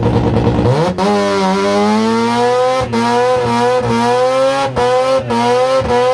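Mazda Bongo van's rotary engine revving hard during a burnout: its pitch climbs steeply about a second in, then is held high with small wavers, broken by brief sharp dips every second or two.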